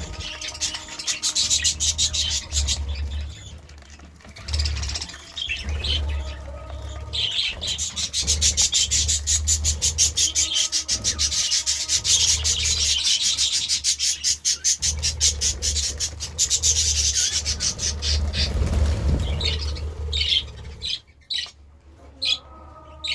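Budgerigars chirping and chattering, with a long fast run of scratchy chirps through the middle that thins out near the end.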